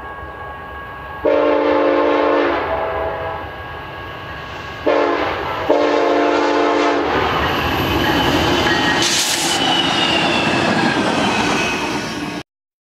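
BNSF EMD locomotive air horn blowing the grade-crossing signal: a long blast, then a short one and a final long one, each a chord of steady pitches. The locomotive then rumbles past with engine and wheel noise, and the sound cuts off abruptly near the end.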